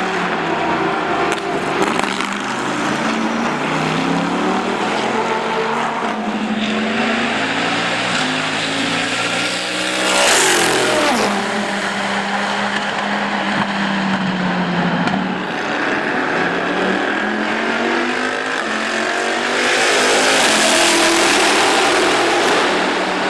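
Racing V8 engine of a Panoz Esperante GTR-1, a 6.0-litre Ford/Roush pushrod V8, running hard on track, its note rising and falling through the gears. About ten seconds in, a car passes close and its pitch drops sharply. Near the end the engine sound swells loud again.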